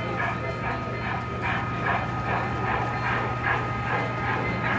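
Sound-equipped HO-scale model steam locomotive (a Broadway Limited Frisco 2-8-2 Mikado) chuffing steadily at about three exhaust beats a second from its onboard speaker, over a steady low hum.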